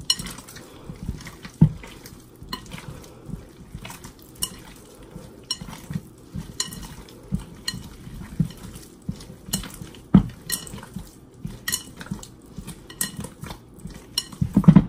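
Hands kneading and beating sticky sour-cassava-starch dough in a glass bowl, working a freshly added egg in: irregular wet slaps and squelches with scattered sharp knocks against the glass, the loudest thump near the end.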